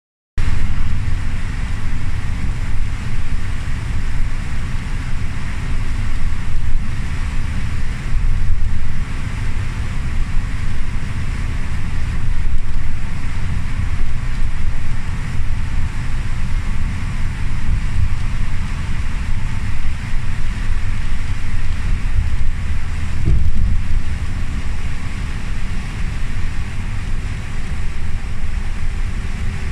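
Inside a bus cruising on an expressway in heavy rain: a steady low rumble of engine and tyres, with a hiss of tyres on the wet road and rain. A brief low thump comes a little past the three-quarter mark.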